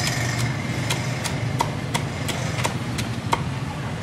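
A cleaver chopping on a chopping block at an even pace, about three strokes a second, over a steady low idling engine hum.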